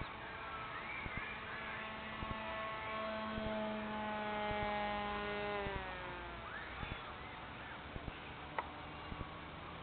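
Electric outrunner motor and propeller of an RC foam-board delta plane (HobbyKing DT 750 motor) humming steadily overhead. A little past halfway its pitch drops and the sound fades as the plane moves away.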